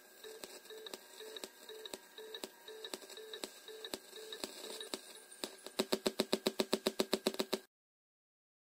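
Wet Bluetooth speaker, switched on, giving out regular clicks about two or three a second over a faint pulsing low tone. About six seconds in the clicks come faster and louder, about nine a second, then the sound cuts off suddenly.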